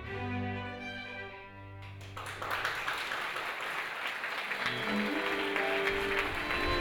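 Small string ensemble playing a classical piece that ends about two seconds in, followed by audience applause.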